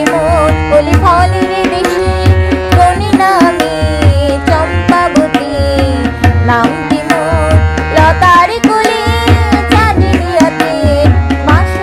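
Harmonium playing a melody over a drum accompaniment, with a deep beat about once a second.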